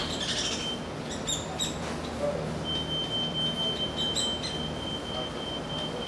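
Hairy woodpeckers giving short sharp calls, two about a second in and two more past the four-second mark, while a juvenile is fed at a suet feeder. Under them is a steady high electronic beeping from a car door left open, which stops briefly and starts again in the second half.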